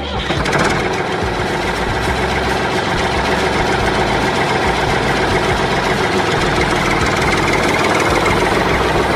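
Tractor engine running steadily, a loud, even engine sound that comes in abruptly after background music.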